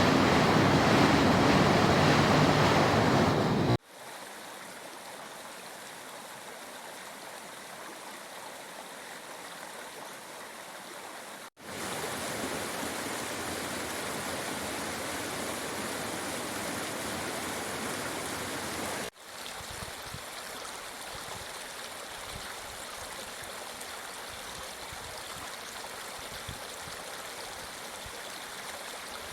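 Rushing water of a stream or small waterfall, heard in four recordings that cut abruptly into one another. The first, about four seconds long, is the loudest and deepest rush; the rest are a quieter, steady hiss of flowing water.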